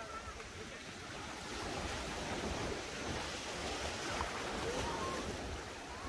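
Sea waves washing onto the beach in a steady wash of surf, with some wind rumbling on the microphone.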